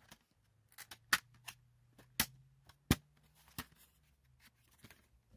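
Plastic DVD case and packaging being handled: several sharp clicks and taps, spaced a second or so apart.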